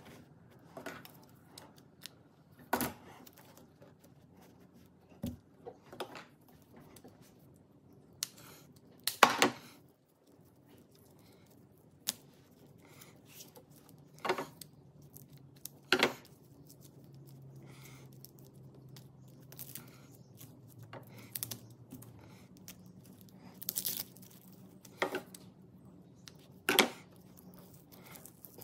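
Hands working cotton rope: scattered short rustles, taps and tearing sounds as tape is pulled off the rope ends and the strands are worked loose. The loudest comes about nine seconds in.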